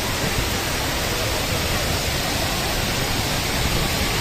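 A wide waterfall in flood, running as a steady rushing of heavy water with no change or let-up.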